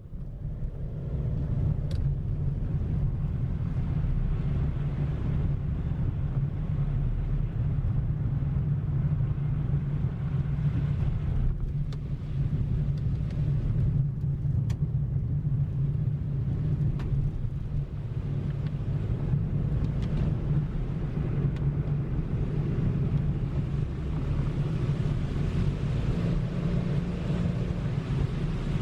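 Car driving steadily along a road, heard on board: a continuous low engine and road rumble, with a few faint ticks.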